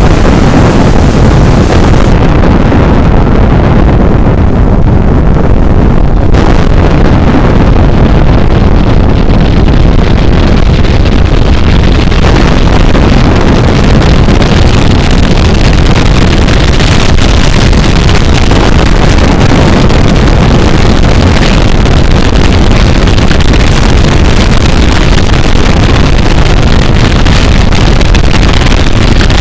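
Very loud, heavily distorted rumbling roar, overdriven to clipping and held at a steady level. From about two to six seconds in the hiss drops away and it sounds muffled, then it comes back.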